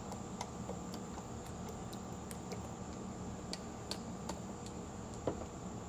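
Faint, scattered clicks and ticks from handling a plastic squeeze bottle of oil as it is squeezed over a bucket, with a slightly louder click about five seconds in, over a steady background hum.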